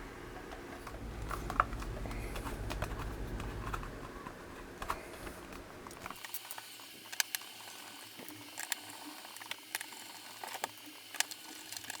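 Plastic project enclosure being closed and handled: scattered small clicks and taps of plastic parts, over a low rumble that stops abruptly about six seconds in.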